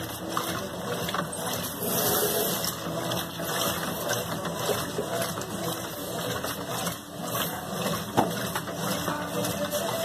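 Consul CWG12 top-loading washing machine agitating a load of cleaning cloths: the motor hums steadily while the agitator churns soapy water and cloth back and forth. The churning rises and falls, with a brief dip about seven seconds in.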